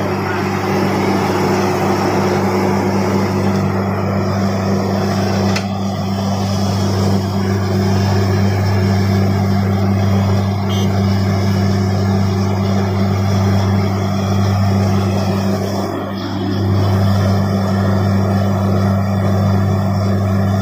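Truck-mounted borewell drilling rig running steadily: a constant engine and compressor drone over the rush of compressed air driving water and slurry up out of the bore. The bore has struck water and it is being blown out.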